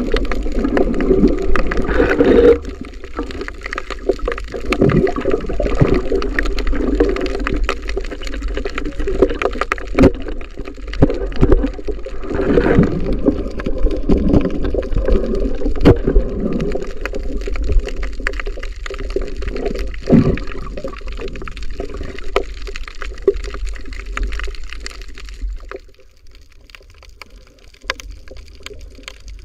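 Muffled underwater water noise and gurgling picked up by a camera in its waterproof housing, with a low rumble and scattered clicks and knocks; it drops quieter near the end.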